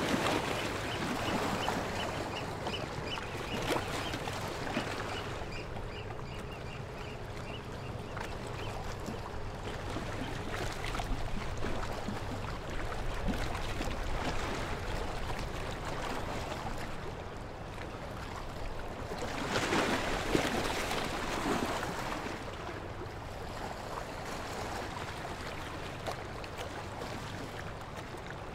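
River water lapping and washing against a stone breakwater in an even wash, swelling at the start and again about twenty seconds in, over a steady low hum. Between about two and nine seconds in, a water bird calls in a quick run of short notes.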